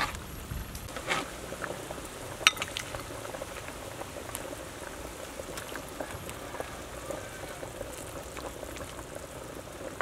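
Pot of duck soup boiling hard: a steady bubbling hiss with many small pops, and one sharp knock about two and a half seconds in.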